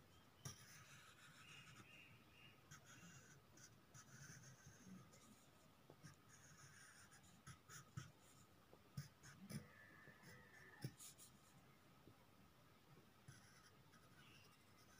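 Faint scratching of a pen drawing on paper on a clipboard, in short irregular strokes with a few light taps.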